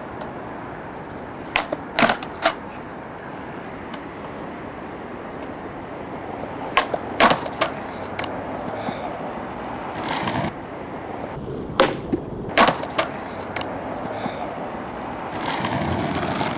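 Skateboard wheels rolling on concrete, with three clusters of sharp clacks as the board flips and lands during freestyle flatground tricks.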